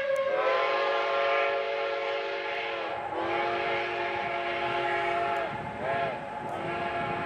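Steam locomotive's chime whistle sounding two long blasts, a short one and another long one (the grade-crossing signal), each dipping in pitch as it cuts off. Passenger coaches rumble past underneath.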